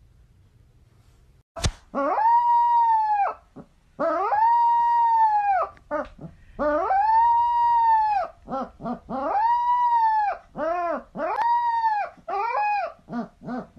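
A young puppy howling: about five drawn-out howls, each rising and falling in pitch, with shorter yelping notes between them that come quicker near the end. The howling starts after a short click about a second and a half in.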